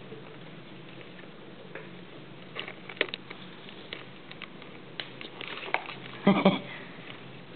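Scattered light taps and patters of a Somali kitten playing with a fishing-rod toy, paws and toy hitting the floor, with a louder brief thump near the end.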